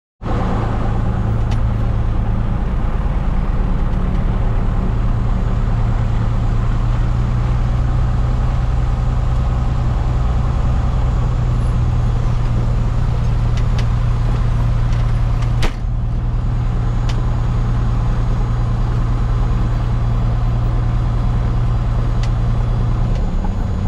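A Cessna 172F's six-cylinder Continental O-300 engine and propeller running steadily at low taxi power, heard from inside the cockpit. There is one sharp click a little past halfway, and the engine note shifts slightly near the end.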